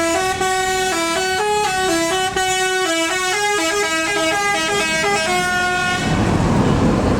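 Bus telolet horn, a multi-tone air horn, playing a quick melody of short stepping notes. It stops about six seconds in, and a louder, noisy bus engine and road sound takes over.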